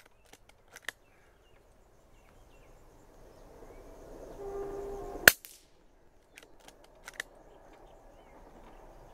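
A pre-charged pneumatic air rifle, with its springs, firing valve and hammer replaced, fires one sharp shot about five seconds in. A few light clicks come near the start and again about a second after the shot, and a brief steady hum sounds just before it.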